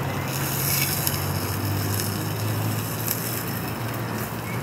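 Pork ribs and potatoes sizzling on a grill, a steady crackling hiss, with a low steady hum underneath.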